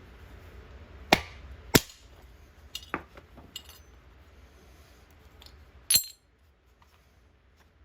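Sharp clinks and knocks of hand tools against metal parts, about six in all: two loud ones in the first two seconds, a cluster of lighter ones around three seconds, and a last loud one about six seconds in. A low hum underneath stops just after that last knock.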